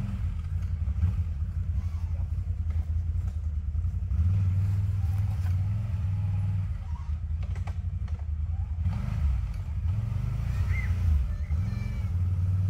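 Off-road 4x4 vehicle's engine running, a low rumble that grows louder about four seconds in, eases off around seven seconds and picks up again about nine seconds in.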